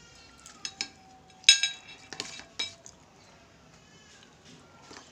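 Metal spoon clinking against a ceramic plate while scooping rice. There are several sharp clinks in the first three seconds; the loudest, about a second and a half in, rings briefly.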